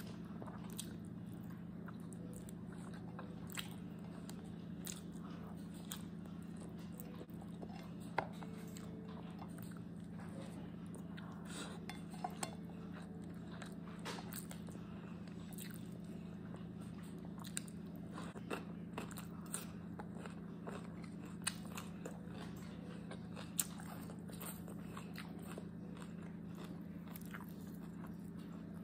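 Close eating sounds: chewing and crunching, with scattered short clicks of fingers picking food from a plate, over a steady low hum.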